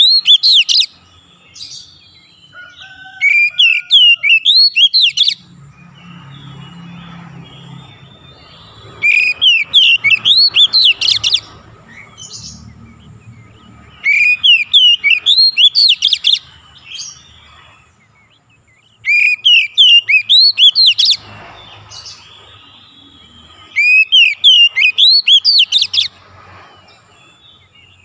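Oriental magpie-robin singing loud, rapid phrases of quick up-and-down whistled notes. Each burst lasts about two seconds and comes back roughly every five seconds, five full times.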